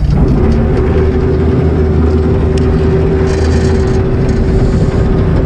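Fishing boat's engine running with a steady hum that sets in abruptly and cuts off about five and a half seconds later.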